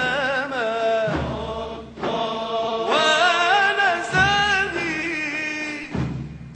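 Background music: a voice singing a wavering, ornamented melody, with a deep low note coming in every couple of seconds.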